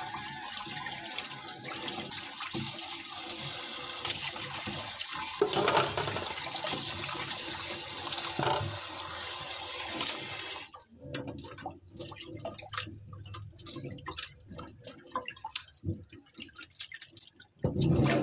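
Kitchen tap running into a steel bowl of raw pork pieces in a stainless-steel sink as hands rub and rinse the meat, the water splashing around. About eleven seconds in the steady flow stops, leaving scattered splashes and drips as the bowl is tipped and the pork drained.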